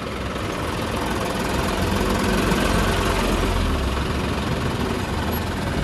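Massey Ferguson tractor's diesel engine running as the tractor drives along, growing a little louder over the first two seconds or so.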